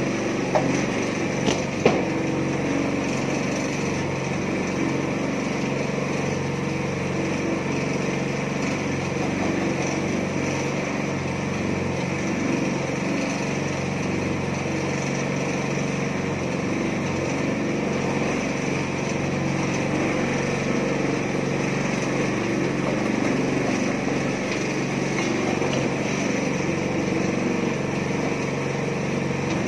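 Small petrol engine of a mini concrete mixer running steadily at a constant speed, with two short knocks near the start.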